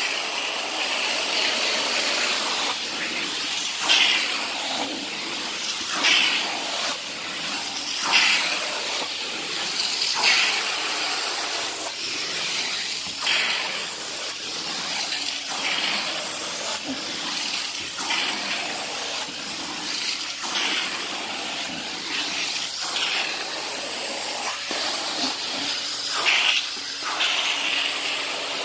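Carpet-cleaning extraction wand drawing over wet carpet: a steady hiss of spray and suction, water being pulled up through the wand, with brief louder surges about every two seconds as the strokes go.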